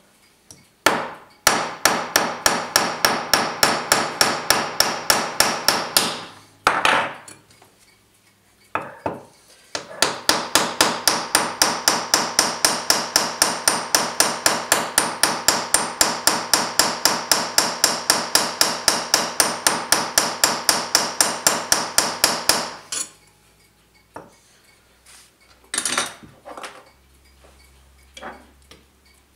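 Rapid light hammer blows on a steel punch, peening a brass bush into a clock mainspring barrel to rivet it in and work-harden the brass. The blows come about five a second, each with a short metallic ring, in two long runs, the second lasting about twelve seconds, with a few single knocks between them and near the end.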